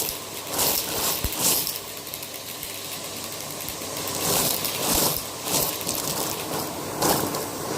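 Crunchy food being chewed close to the microphone, in a run of sharp crunches about half a second to a second apart.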